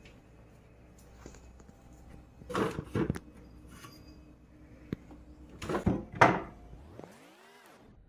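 Plastic refrigerator drawers being slid open and pushed shut, with two pairs of sharp scraping clunks: one pair about two and a half seconds in, a louder pair around six seconds.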